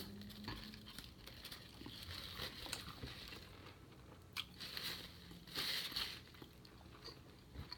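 Faint close-up chewing of a mouthful of sandwich, with scattered small mouth clicks and a couple of slightly louder moments about four and a half and six seconds in.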